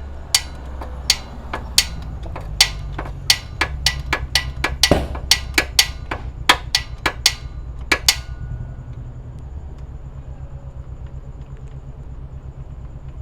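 Sharp clicks or taps from hand tools at work, about two a second, stopping about eight seconds in, during removal of a car's air-conditioning compressor. A steady low hum runs underneath.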